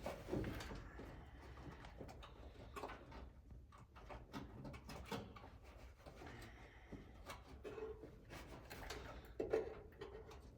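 Faint rustling and small scattered clicks of hands groping inside a car's fender area for a dropped nut.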